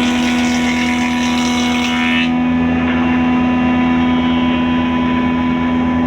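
A motor running steadily with a strong, constant hum. About two seconds in the hiss above it drops away abruptly while the hum carries on.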